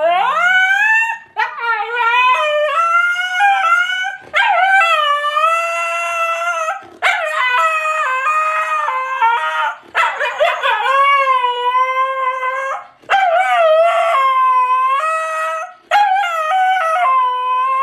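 An animal howling: a run of long, loud wavering calls that slide up and down in pitch, with short breaks between them.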